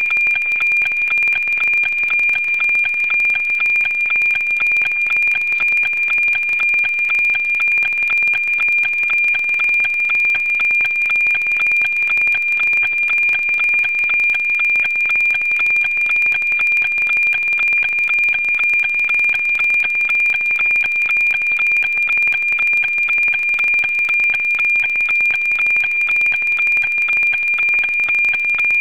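FM-demodulated APT signal from the NOAA-19 weather satellite: a steady high tone with a fast, regular ticking pattern riding on it. This is the image data being received live.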